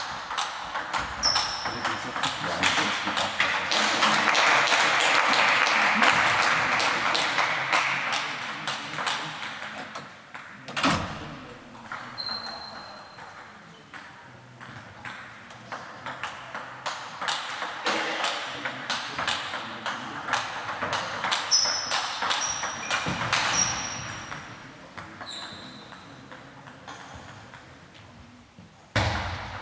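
Table tennis balls clicking off tables and bats, many quick light hits from several tables overlapping and echoing in a sports hall, with a few short high squeaks and a louder wash of hall noise for a few seconds near the start.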